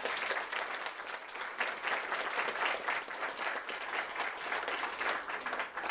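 A roomful of people applauding: many hands clapping together in a dense, steady patter.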